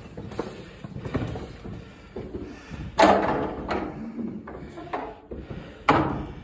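Slow, uneven footsteps on stone with echoing thuds, two of them heavier: one about three seconds in and one near the end.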